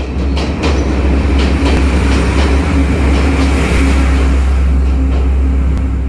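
A train's carriages passing close by inside a railway tunnel: a loud, steady rumble with a heavy low drone and the wheels clicking over the rail joints.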